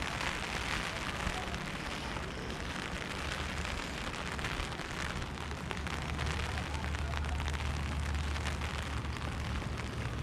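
Steady rain falling, with a low rumble of wind on the microphone that grows stronger about halfway through.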